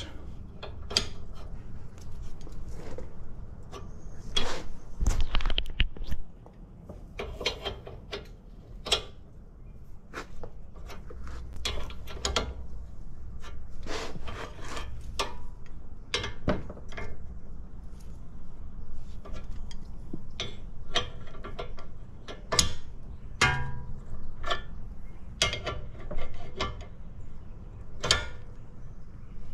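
Steel hand tools clicking, knocking and scraping as a breaker bar and 24 mm socket work the forcing bolt of a tie rod end separator, in irregular clicks with a heavier low thud about five seconds in.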